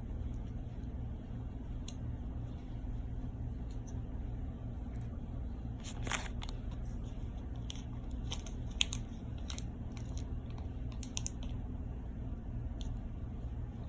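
Light clicks and a short scrape of small parts being handled while an RC car's differential is taken apart, with the planetary gears being removed. A steady low hum runs underneath.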